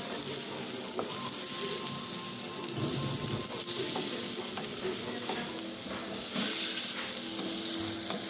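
Chopped onion, tomato and capsicum sizzling in hot oil in a pan, stirred with a wooden spatula that scrapes lightly against the pan. The sizzle grows louder about six seconds in.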